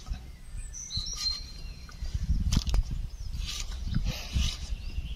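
Potato being cut on a boti, a curved blade held under the foot: soft knocks and scraping from about two seconds in. A bird chirps briefly about a second in.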